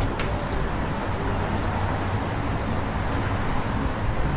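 Steady city street traffic noise from passing cars, with a few faint ticks.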